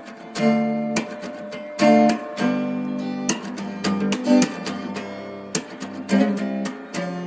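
Background music of strummed guitar chords, with repeated sharp strums ringing out.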